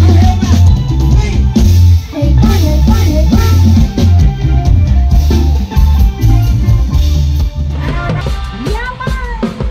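Live Thai ramwong samcha dance music from a band on a rot hae music truck, played through its large loudspeakers: a drum kit and cymbals over a heavy, steady bass beat with a melody line. Near the end the bass beat drops back while a sliding melody carries on.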